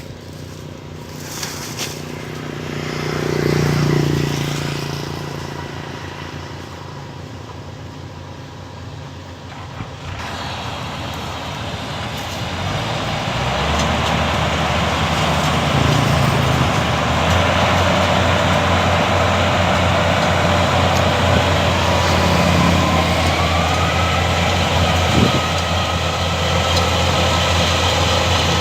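Rice combine harvester running, its engine and threshing machinery building up about ten seconds in and then holding loud and steady. Earlier there is a brief swell of engine noise.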